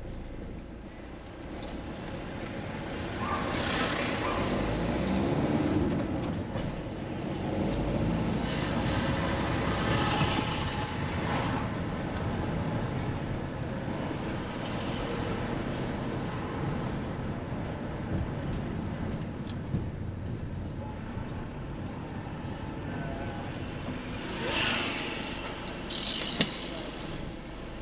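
Road traffic: a steady drone of vehicle noise with several passing vehicles that swell and fade, and a sharp click near the end.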